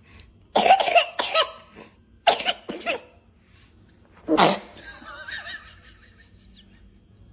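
A baby sneezing and coughing in three loud, short bursts during the first five seconds, followed by fainter sounds.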